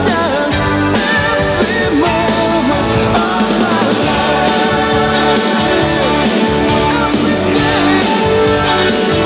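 Rock song with a lead vocal over a full band with electric guitar and a steady drum beat.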